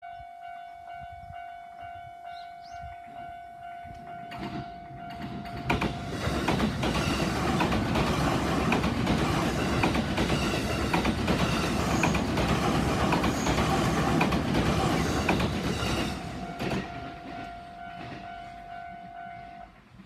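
Japanese level-crossing alarm bell ringing in a steady pulse as a JR East E257-series limited express electric train approaches. From about six seconds in the train runs through the crossing, a loud rush of wheels on rail that drowns the bell for about ten seconds. The bell is heard again as the train clears and stops just before the end.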